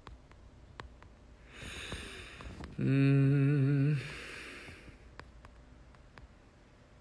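A man's long breathy exhale with a hummed, slightly wavering 'hmm' of about a second in the middle, then the breath trails off.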